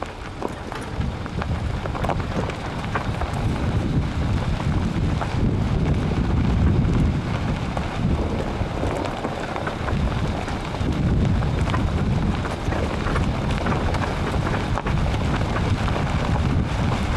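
Wind buffeting a vehicle-mounted microphone over the rumble of tyres on a dry dirt and gravel track, with scattered small clicks of grit and stones, as an off-road vehicle drives along towing a trailer.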